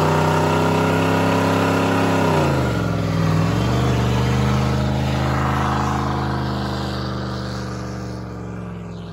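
Pickup truck engine held at high revs during a peg-leg burnout, with one rear tyre spinning and smoking on the pavement. The revs drop briefly about two and a half seconds in, climb back and hold steady, and the sound fades toward the end.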